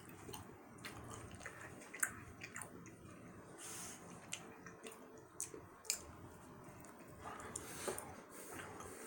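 Faint wet, squishy mouth sounds of someone chewing a large chunk of gummy candy, with short smacks and clicks scattered throughout.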